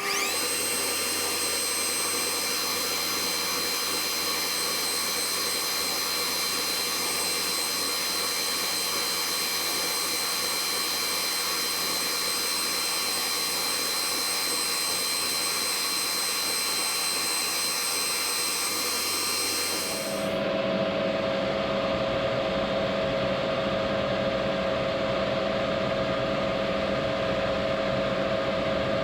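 Metal lathe running at high speed on its fast pulley. It spins up with a rising whine at the start, then holds a steady high whine. About twenty seconds in, the sound changes abruptly to a lower, steady hum.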